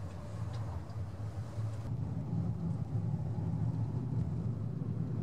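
Steady low engine and road rumble heard inside the cabin of a non-turbo Suzuki Spacia Custom kei car while it is being driven. About two seconds in the sound changes abruptly at a cut, and the rumble is a little stronger afterwards.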